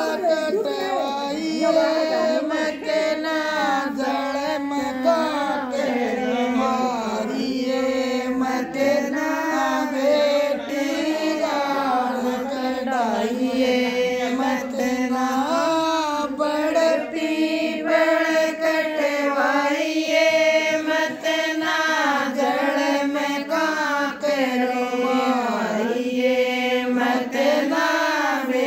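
A woman singing a Rajasthani jakhdi folk song solo and unaccompanied, in long held notes that waver and slide between pitches.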